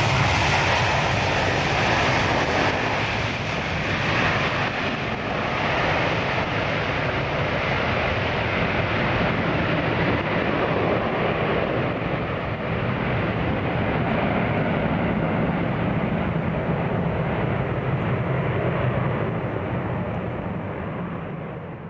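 Ilyushin Il-76 freighter's four turbofan engines at takeoff power as it rolls out and climbs away: a loud, steady jet noise whose hiss slowly dulls as it recedes, fading near the end.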